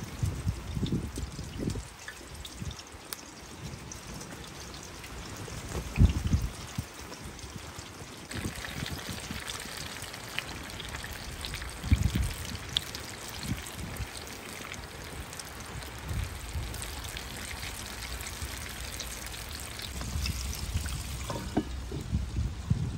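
Chicken pieces frying in hot oil, a steady sizzling hiss that grows louder about eight seconds in, broken by a few dull low thumps.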